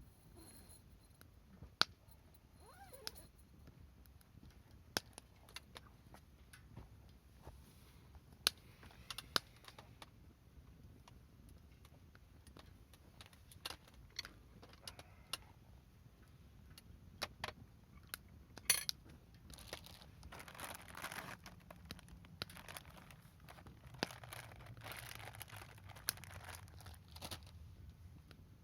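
Wood campfire crackling, with sharp irregular pops and a few stretches of soft hissing in the second half.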